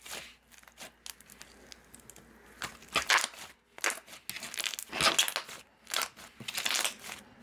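Thick, squishy white slime being kneaded and pressed flat by hand, its trapped air bubbles popping and crackling. It is quiet at first, then a string of sharp, irregular pops comes from about two and a half seconds in.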